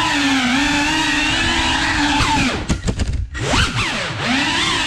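Cinewhoop FPV drone's brushless motors and ducted propellers whining, the pitch wavering up and down with the throttle. About two and a half seconds in, the throttle chops: the whine swoops down and cuts out briefly, then climbs back up as power returns.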